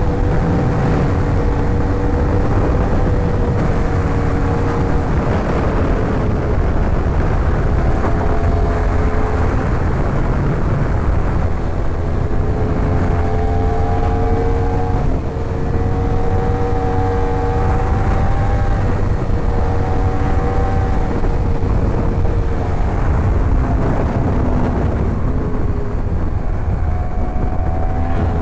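Yamaha R1 inline-four engine running under way at a fairly steady cruise. Its pitch holds level, easing down slightly a few times, around five, fifteen and twenty-four seconds in.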